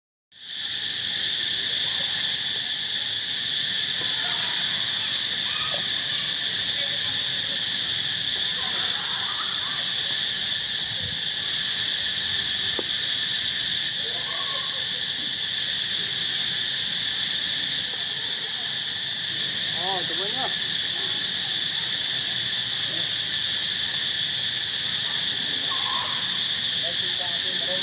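Steady high-pitched insect drone, with a few faint short calls now and then.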